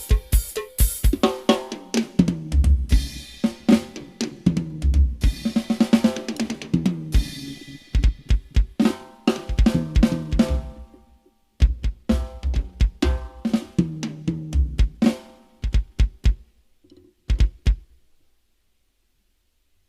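Live band music led by a drum kit, with kick drum, snare, hi-hat and cymbals under pitched bass and instrument notes, played through a full sound system for a sound check. The band stops about 18 seconds in after a few final accented hits, and silence follows.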